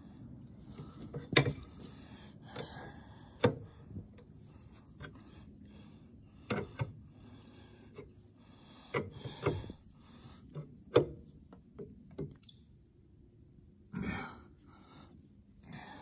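Metal wrench clicking and clinking on a hydraulic fitting of a log splitter's control valve as the fitting is turned a little at a time: single sharp clicks spaced irregularly a second or two apart, with a longer scraping sound near the end.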